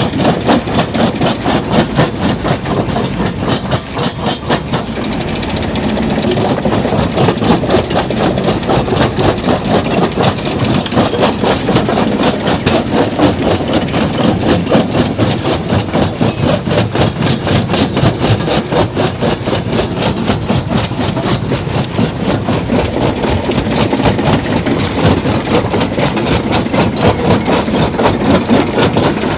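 Stone crusher machine running and crushing rocks, a loud, steady mechanical clatter with a fast, even rhythm of knocks.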